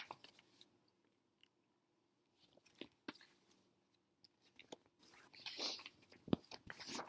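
Faint rustling and small clicks of a picture book's paper pages being handled and turned, with the loudest rustle and a sharp tap near the end.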